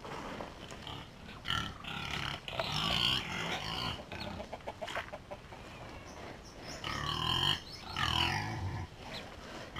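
Pigs grunting and squealing in two bouts, the second about seven seconds in.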